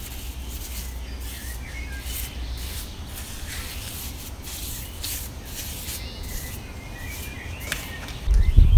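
Outdoor background: a steady low wind rumble on the microphone with faint, intermittent small bird chirps, and a louder gust of rumble near the end.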